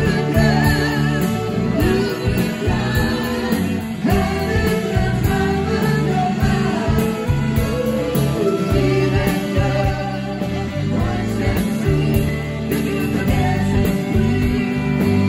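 Live rock band playing, with electric guitars, drums keeping a steady beat on the cymbals, and a singing voice.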